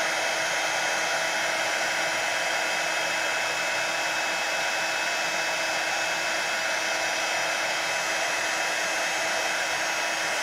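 Craft heat gun blowing steadily, a hiss of air over an even motor whine, heating embossing powder to melt it.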